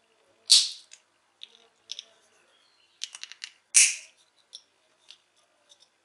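Plastic parts of a modular electrical switch clicking and snapping as they are handled and fitted together: two sharp snaps, about half a second in and near four seconds, among lighter clicks, including a quick run of them around three seconds.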